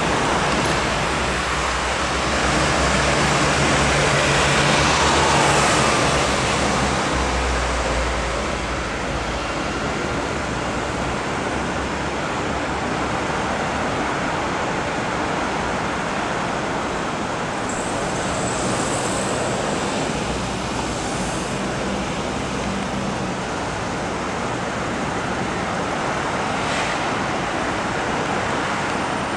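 Steady city road-traffic noise, with a vehicle engine's low hum rising and fading in the first several seconds.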